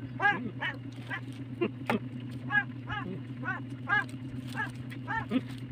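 Repeated short animal calls, two or three a second, some overlapping at different pitches, over a steady low hum.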